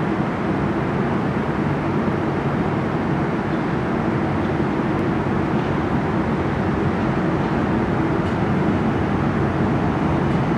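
R68 subway train approaching through the tunnel: a steady deep rumble that grows slowly louder as it nears the platform.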